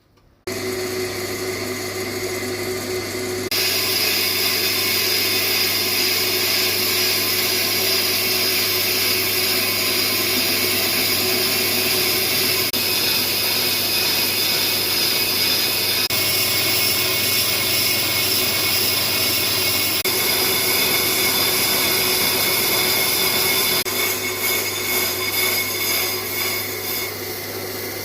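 Brake lathe machining a slotted brake rotor. The lathe starts with a steady hum, and a few seconds in the cutting bit bites, adding a loud, high metallic cutting noise that runs steadily and turns uneven near the end.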